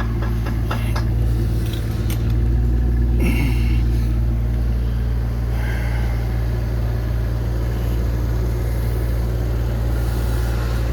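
Steady low mechanical hum of running machinery. A few light clicks come in the first second, and a short higher-pitched sound about three seconds in.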